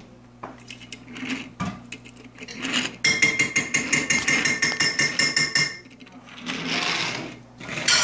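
Small plastic toy trucks rolling and rattling across a wooden tabletop as a parrot shoves them with its beak. A rapid clatter begins about three seconds in and lasts nearly three seconds, with a softer scrape and a sharp knock near the end.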